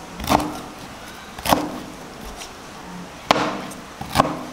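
Kitchen knife cutting through the crisp crackling skin of oven-roasted pork belly: four sharp crunches, each a separate cut, spaced unevenly.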